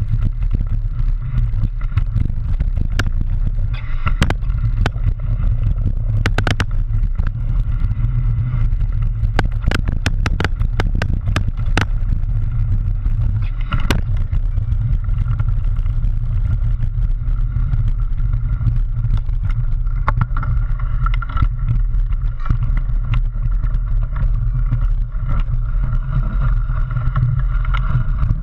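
Mountain bike riding fast down a rough dirt trail, heard from a camera on the front fork: a steady heavy rumble of wind and tyre on the ground, with sharp clicks and clatters as the bike jolts over rocks and roots, thickest from about four to fourteen seconds in.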